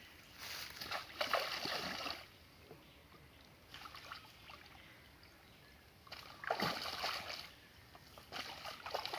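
Water splashing in three bursts as a hooked catla thrashes while being landed.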